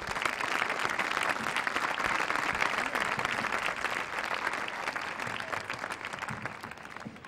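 A seated audience of a few dozen people applauding. The clapping slowly dies away over the last couple of seconds.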